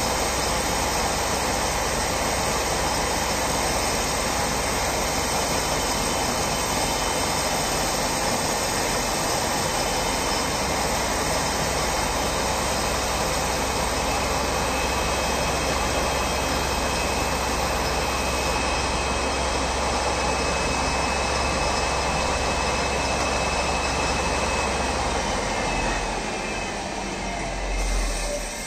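Homemade metal lathe running steadily under a cut, smooth and without chatter. The running stops about 26 seconds in, and a brief low thud follows near the end.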